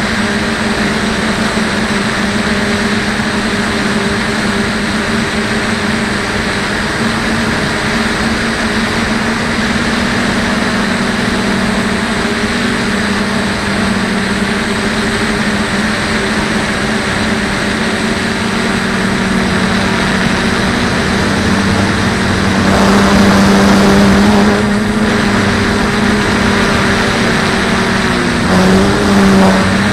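DJI F450 quadcopter's brushless motors and propellers buzzing steadily in flight, heard from a camera mounted on the frame. About three-quarters of the way in the buzz gets louder for a couple of seconds, and near the end the pitch wavers briefly as the throttle changes.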